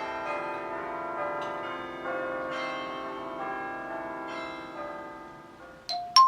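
Bells ringing: many overlapping, sustained bell tones that slowly fade, then near the end clear struck chime notes begin, about two a second.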